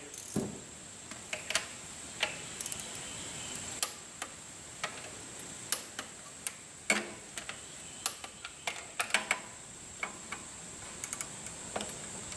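Scattered sharp metallic clicks, a few in quick runs, from a ratchet and socket working the connecting-rod bolts on the crankshaft of a Cummins 8.3L diesel engine block.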